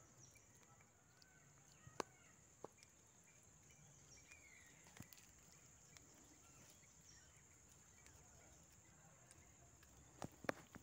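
Near silence: a faint steady high-pitched insect buzz, a few faint bird chirps, and several sharp clicks, the loudest about two seconds in and a small cluster near the end.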